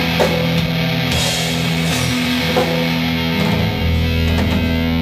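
Rock band playing live with no vocals: electric guitars holding long chords over bass and drums, in the closing instrumental stretch of the song.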